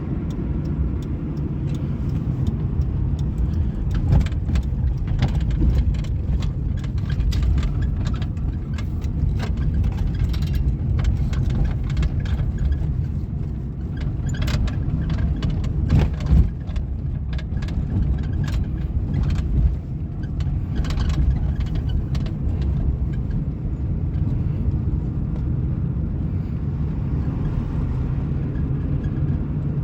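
Inside the cabin of a 1998 Suzuki Baleno driving over a rough road: a steady road and engine rumble, with frequent sharp knocks and rattles over the bumps, thickest through the middle of the stretch. The rattle is the one being hunted down, placed somewhere in the cabin under the dashboard.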